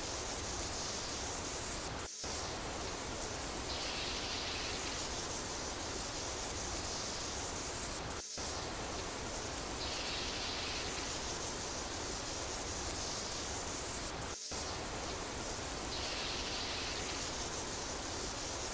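Steady heavy rain, a looped recording that repeats about every six seconds, with a very brief dip each time it starts over.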